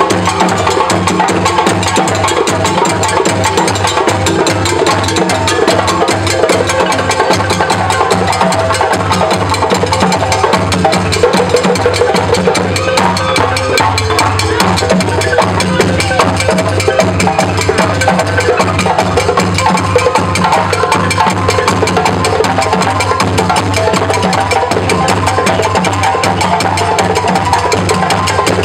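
West African drum ensemble playing: hand-played djembes over a drum beaten with a stick, in a fast, steady rhythm.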